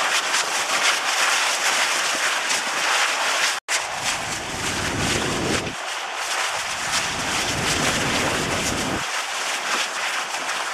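Dubbed-in eruption sound: a continuous loud crackling hiss of spattering lava and fire. It cuts out for an instant about three and a half seconds in, then carries on with a deeper rumbling roar underneath that swells and fades twice.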